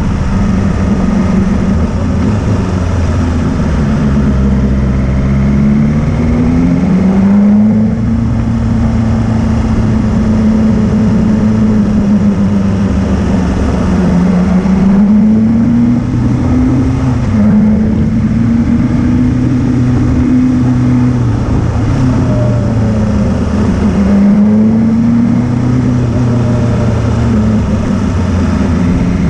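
Motorcycle engine under way on a climbing mountain road, its pitch rising and dropping several times with throttle and gear changes. A steady rush of wind noise runs underneath.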